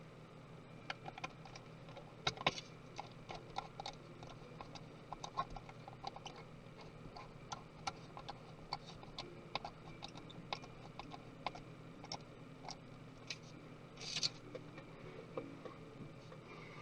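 Small tools and parts of a MacBook Pro being handled during disassembly: many light, irregular clicks and taps, with a brief scratchy noise near the end, over a faint steady low hum.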